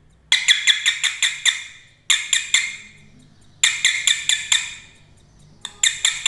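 Mains doorbell's buzzer sounding in bursts of rapid, sharp chirps, about five a second, with short gaps between bursts, as its broken-off wire is held against the buzzer terminal and sparks. The sound is weaker than the bell's normal tone; the repairer finds the circuit's 220 µF 35 V capacitor swollen and overheating.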